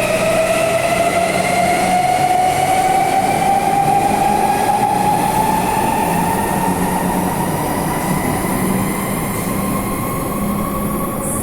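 Electric suburban train accelerating: its traction motors give a whine that climbs steadily in pitch, over the rumble of the train.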